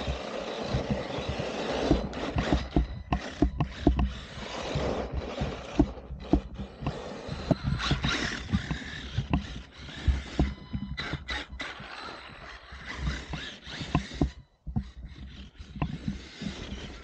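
Axial RYFT radio-controlled rock bouncer driving through snow: a continuous hiss and crunch of snow churned and thrown by its tyres, broken by many sharp knocks and clatters as the chassis bounces. It drops out briefly near the end.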